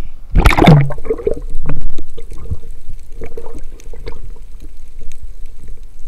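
Sea water sloshing and gurgling around a diver, with a loud rush of water about half a second in and scattered clicks throughout.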